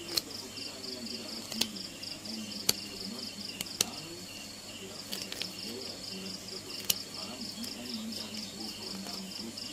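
An insect, likely a cricket, trilling in rapid, even, high-pitched pulses that pause briefly about four seconds in. Five sharp clicks fall at irregular moments over it.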